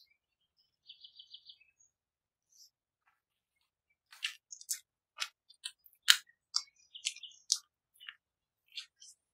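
A spatula scraping and knocking against a glass mixing bowl as flour is stirred into liquid for dough: short, irregular clicks and scrapes, mostly in the second half, the loudest a sharp knock about six seconds in. About a second in there is a brief run of high chirping pulses.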